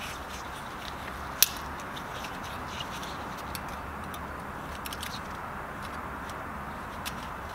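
Steady background hiss of workshop room noise, with a few faint small clicks and one sharp click about a second and a half in.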